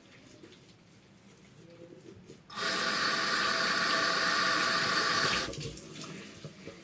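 A water tap running into a sink for about three seconds. It comes on sharply about two and a half seconds in and is shut off. Before that there are only faint handling sounds.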